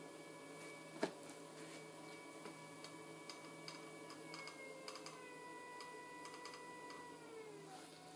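Electric potter's wheel motor whining steadily, its pitch stepping down a little about four seconds in and dropping again near the end as the wheel slows. Faint scattered ticks run through it, with one sharper click about a second in.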